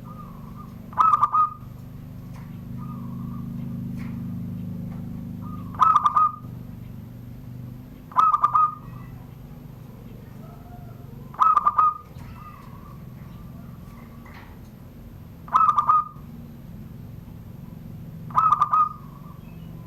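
Zebra dove (perkutut) singing: six short, rapidly trilled coos spaced a few seconds apart, in the classic 'surung gdor' song style.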